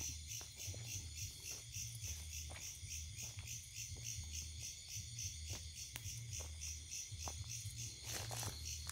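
Crickets in a forest chirping in a steady, evenly pulsing high-pitched chorus, with a few faint clicks scattered through it.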